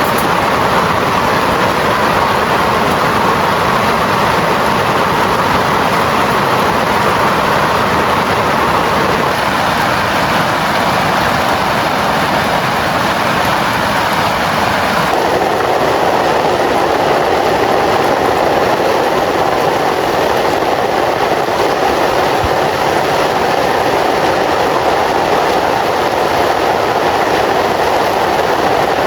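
Heavy rain pouring down in a dense, steady hiss. About halfway through the sound turns a little deeper.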